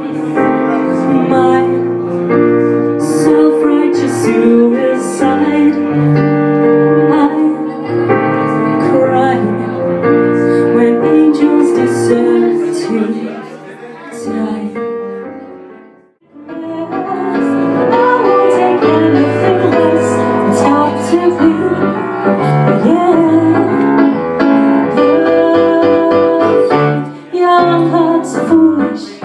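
Live piano-and-vocal performance: a piano accompanying a female singer. About halfway through the music fades out and another song starts straight after.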